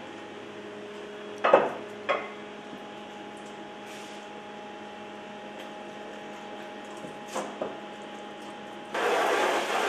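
A screen-printing frame is knocked twice into place in a washout booth, with two softer knocks later. Near the end, a hand-held hose starts spraying water onto the screen to wash out (develop) the exposed diazo emulsion. A steady hum runs underneath.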